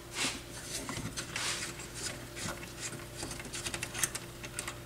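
Light, scattered clicks and small rattles of hands working at the back of a Pioneer SX-6000 receiver, at its line voltage selector and mains fuse holder, over a faint steady hum.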